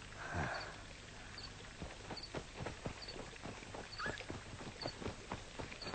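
A horse's hooves clopping in an irregular run of knocks, with a short low falling animal call just after the start.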